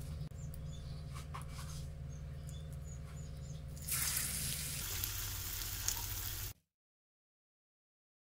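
Idli-batter medu vada frying in hot oil in an aluminium kadai: a low steady hum with faint wet handling sounds, then sizzling starts about four seconds in as the batter goes into the oil. The sound cuts off suddenly to silence past the middle.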